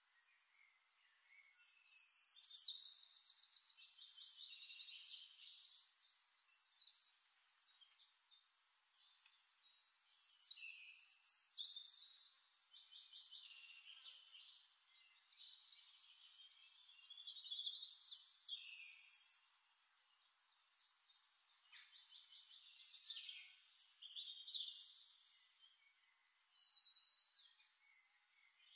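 Faint birdsong from a nature-sound recording: bouts of high chirps and rapid trills lasting a few seconds each, with short pauses between them.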